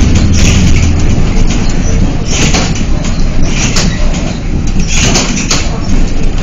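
Road and engine noise of a car in motion: a steady low rumble, strongest in the first second, with repeated bursts of hiss.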